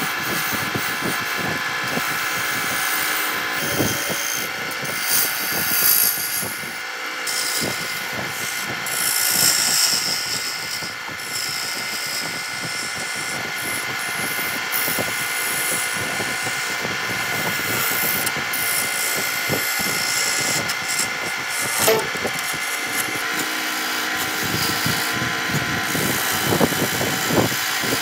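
Wood lathe motor running steadily while a hand-held chisel cuts into the spinning wood: a continuous scraping hiss over the motor's hum, broken by irregular small ticks.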